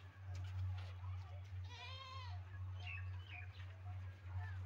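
A goat bleating once, a quivering call about two seconds in, with a few short bird chirps and a steady low hum underneath.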